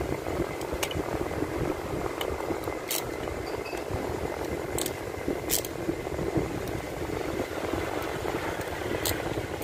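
A few light, sharp metallic clicks of a hand driver working screws on an aluminium throttle body, over a steady background drone.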